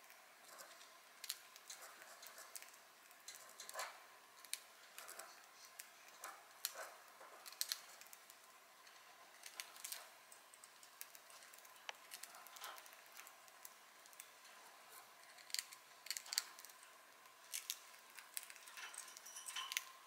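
Budgie nibbling dry sourdough toast with its beak: irregular, quiet little crunches and snips, a few sharper ones clustered near the middle and toward the end.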